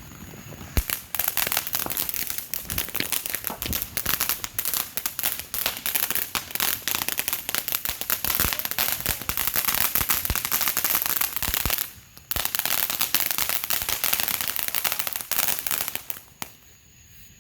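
Fireworks crackling: a sharp pop just under a second in, then a dense run of rapid pops that breaks off briefly near the middle, starts again and stops near the end.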